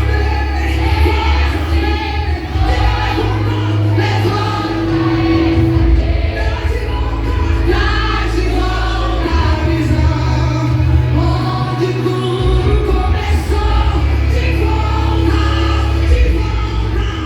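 Gospel song with singing voices over a strong, sustained bass line.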